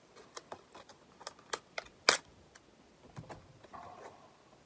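Sharp plastic clicks and crackles from a clear plastic disc case being handled and opened, with the loudest snap about two seconds in.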